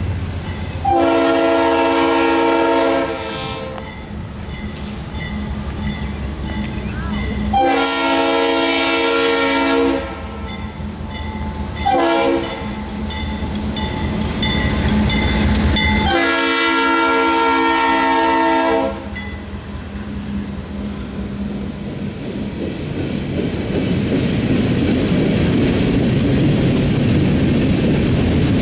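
Norfolk Southern GE Dash 8-40CW locomotive's Nathan Airchime RS-3L three-chime horn sounding long, long, short, long, the grade-crossing signal. After the last blast the rumble of the locomotive and train builds steadily, and loaded gondola cars roll past with wheel clatter near the end.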